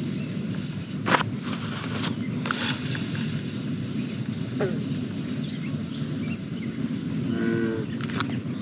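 Evening pond ambience: a steady high insect drone with a few short falling chirps, and a frog's short, deep croak about seven and a half seconds in.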